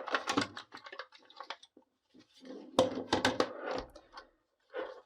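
Clicks and clatter of a Ryobi cordless inflator-compressor's housing being opened and the parts inside handled, in two bursts: one at the start and a denser one about three seconds in.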